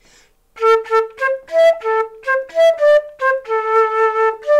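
Transverse flute playing a short melody in separate tongued notes in its middle-low register, with one longer held note about three-quarters of the way through.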